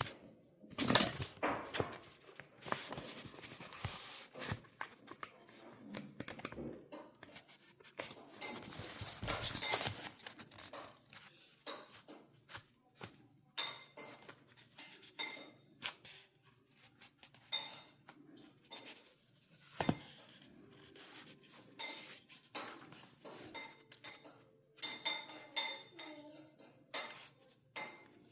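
Small hard objects clicking, tapping and clinking against a hard surface, with two longer scraping stretches, one just after the start and one about eight to ten seconds in.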